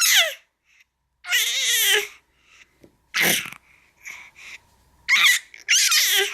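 A baby squealing and shrieking in a series of loud, high-pitched cries, most falling in pitch, with a short breathy burst about three seconds in.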